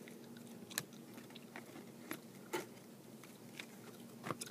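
Baseball cards being flipped through by hand: a handful of light, sharp clicks and snaps as the cards knock and slide against each other, over a faint steady hum.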